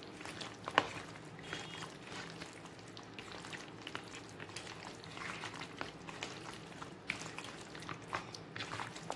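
A hand squishing and mixing mutton pieces in a thick yogurt-and-spice marinade in a plastic bowl. Faint, irregular wet squelches, with a sharper click just under a second in.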